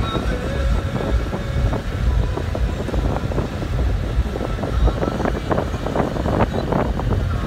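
Car cabin noise while driving slowly: a steady low rumble of engine and tyres with wind buffeting the microphone, and a few short knocks in the second half.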